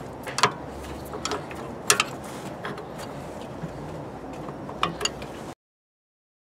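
Wrench turning the nut on a car's suspension ball joint: sharp metal clicks at irregular intervals, a few close together about two seconds in. The sound cuts out completely near the end.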